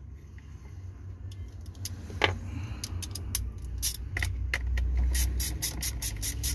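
Small quarter-inch-drive socket ratchet clicking as it tightens the through-bolts of a Ford Courier starter motor. A few scattered clicks and a metal clink come first, then from about five seconds in a quick even run of clicks, about five a second. A low steady rumble runs underneath.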